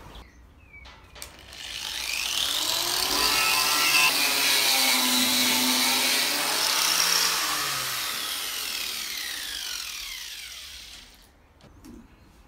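Angle grinder fitted with a 'wheel of death' stripping heavy rust off a steel lorry chassis rail. It spins up about two seconds in, grinds steadily, then winds down and stops about eleven seconds in.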